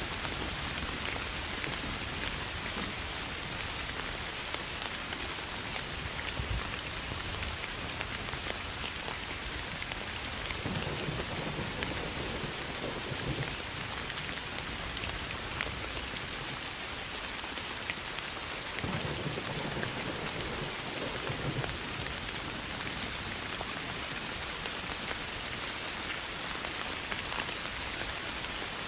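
Steady soft rain falling on grass and leaves, with many individual drops pattering close by. Two low rumbles of distant thunder come through, about a third of the way in and again about two-thirds in.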